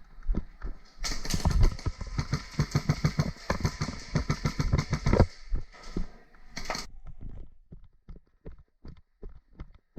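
A player's footsteps crunching over rough ground with gear rustling, quick and dense at first. About seven seconds in the rustle stops suddenly, leaving slower, fainter steps.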